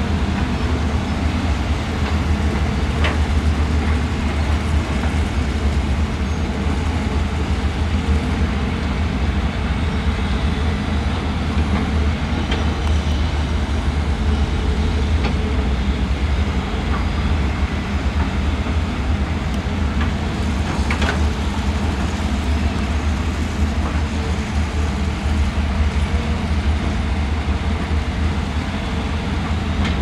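Diesel engines of hydraulic excavators running steadily at work, a low drone with a couple of faint knocks.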